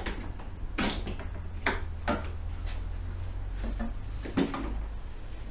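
A series of sharp clicks and knocks, about six in all and spaced unevenly, from hands and tools working loose the headlight fittings, over a steady low hum.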